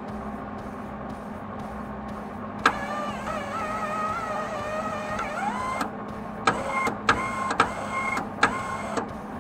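MIG welder's wire-feed motor running in short bursts, feeding a newly loaded wire spool through the drive rolls. It spins up with a rising whine about five seconds in, then starts and stops four more times, each burst with a click. A steady low hum runs underneath.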